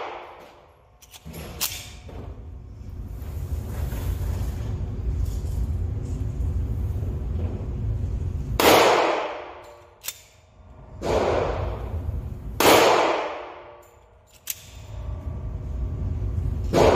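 Glock 20 10mm pistol fired three times, the shots about two and a half and then one and a half seconds apart, each echoing in an indoor range. A steady low rumble runs before the shots.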